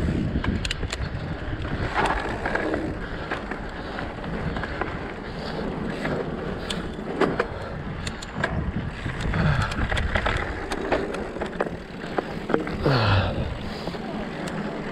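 Mountain bike rolling fast down a dirt trail: steady rushing noise of the tyres on dirt and air over the camera, with frequent clicks and rattles from the bike over bumps. A brief falling tone near the end.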